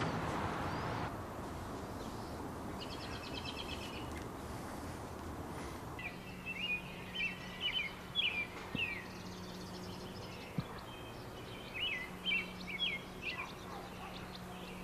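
A songbird singing: a short high trill, then two runs of quick chirping notes a few seconds apart, over steady background noise with a faint low hum.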